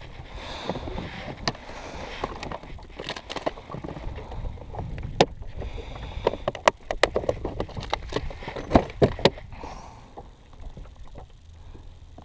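Handling noise on a fishing boat: scattered sharp knocks and clicks, the loudest bunched in the middle, over a low rumble, with two short hissing rushes, one near the start and one in the middle.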